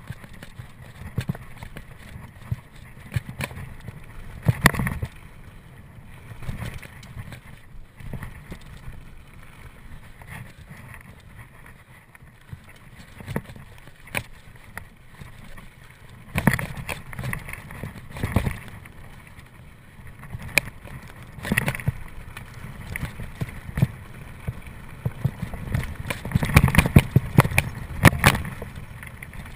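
Mountain bike ridden over rough trail: irregular knocks and rattles from the bike over a low rumble of tyres on dirt. It comes in heavier patches, the busiest near the end.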